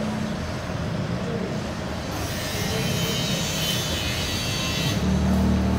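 Road traffic: vehicles running past, with a heavier engine hum getting stronger near the end.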